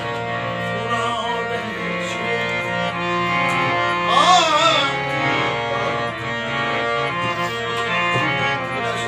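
Live Punjabi devotional-folk music: harmoniums holding steady chords over tabla, with a male voice singing a wavering, ornamented run about four seconds in.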